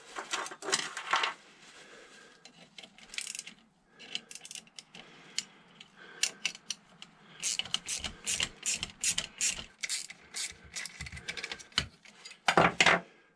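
Metal hand tools clicking and clinking on a motorcycle fork's top cap as the fork leg is screwed together and tightened. A run of evenly spaced clicks, about three a second, comes in the second half, and a louder knock near the end.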